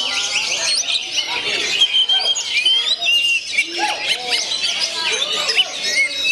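Many songbirds singing at once: a dense, unbroken mix of quick chirps, trills and sliding whistles overlapping each other.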